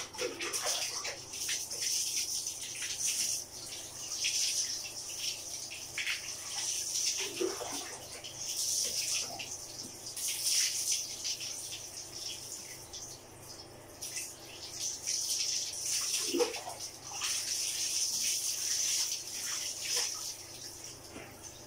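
Water poured from a plastic jug over a dog's wet coat and splashing onto a tiled floor: a dog being bathed. The pours come again and again, each swelling and fading over a second or two, with a few soft knocks of the jug against the basin.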